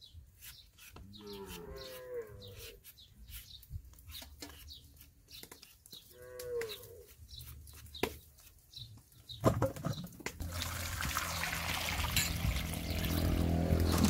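Short scraping strokes of a hand peeler shaving strips off a green mango, with a cow mooing twice in the background. About ten seconds in, water starts pouring into a steel bowl of peeled mangoes with a steady rush that grows louder.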